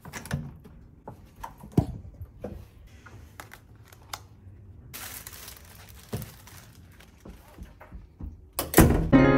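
Hotel room door's lever handle clicking as the door is opened, then a plastic carrier bag rustling and a plastic takeaway food container being handled as a delivered meal is picked up. A loud knock comes near the end, and music starts right at the end.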